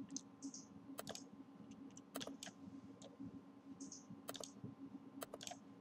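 Faint computer mouse clicks and keyboard keystrokes: about a dozen scattered sharp clicks, several in quick pairs, over a faint steady low hum.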